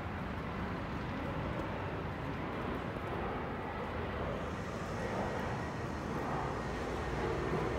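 Aircraft passing overhead: a steady rumble, with a higher hiss joining about halfway through.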